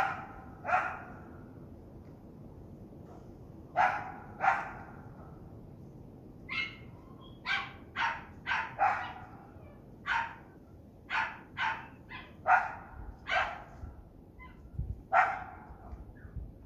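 Small dog barking repeatedly at a deer confronting it, about sixteen barks in irregular runs of one to four with short pauses between.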